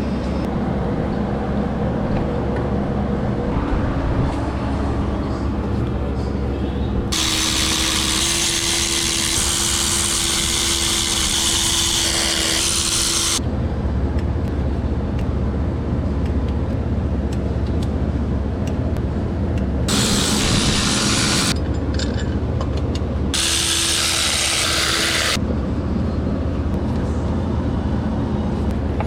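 A power tool running in three bursts: a long one of about six seconds, then two short ones near the end of the second half, each a loud hiss with a steady whine in it, over a constant low hum.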